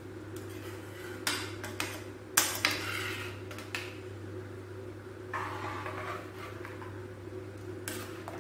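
Metal spoon scraping and clinking against a stainless-steel pan as thick gravy is stirred, in several separate strokes, the loudest knock about two and a half seconds in and a longer scrape near the middle. A steady low hum runs underneath.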